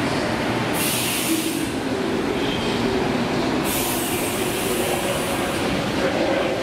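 Twin-engine Airbus A320neo with Pratt & Whitney geared-turbofan engines at take-off thrust as it rotates and climbs away: a steady jet roar with several low droning tones. A high hiss swells twice, about a second in and again around four seconds.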